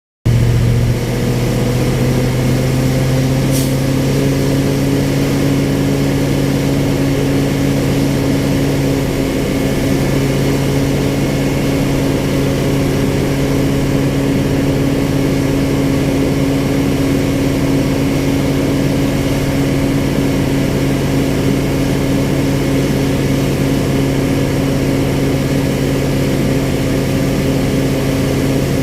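A baler's motor running with a steady hum. It comes up to speed over the first few seconds, then holds an even pitch, with a single click about four seconds in.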